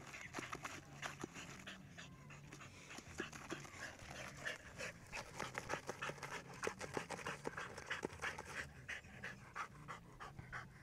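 Dog digging at a gopher hole: its paws scrape the dry dirt in quick, irregular strokes, with fast panting.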